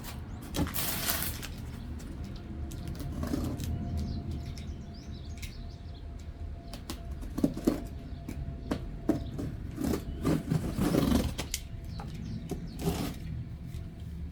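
Handling of a cardboard box being opened: irregular rustles, scrapes and knocks, busiest in the second half.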